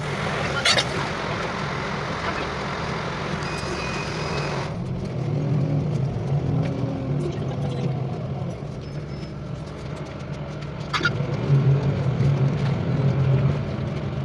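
Bus engine running, heard from inside the passenger cabin as a steady low hum. A hiss over the first few seconds cuts off suddenly, and there are two short clicks, one near the start and one near the end.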